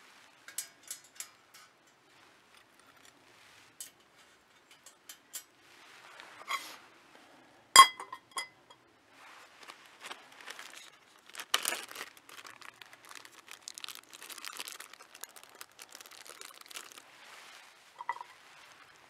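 Wood fire crackling and popping inside a Firebox folding steel stove, with one loud metallic clank about eight seconds in that rings briefly as a frying pan is set down on the stove. The crackling grows denser after the clank.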